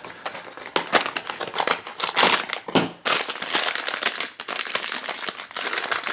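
A foil blind bag crinkling in the hands as it is drawn out of its small cardboard box and handled, in irregular crackles with a few louder bursts.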